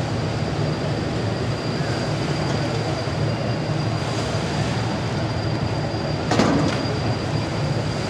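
ShinMaywa US-2 flying boat's four turboprop engines running as it taxis across the water: a steady drone with a high turbine whine held on one pitch. A brief louder rush of noise comes about six seconds in.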